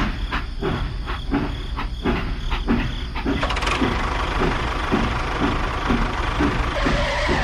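A small engine running with a steady chug of about two to three beats a second. The beats are sharper over the first three seconds.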